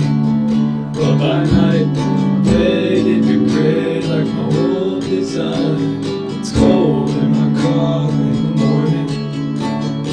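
Lo-fi rock song in an instrumental passage, led by strummed acoustic guitar chords.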